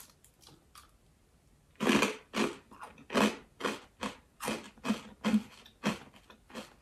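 A person chewing a crunchy bread chip with the mouth close to the microphone, in a steady run of crunches about two a second, starting about two seconds in.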